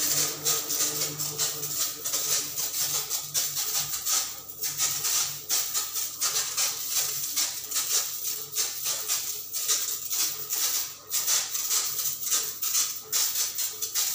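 Pressurised pest-control sprayer hissing out of a metal spray lance, the hiss swelling and dipping unevenly, with a low steady hum underneath that fades after about two seconds.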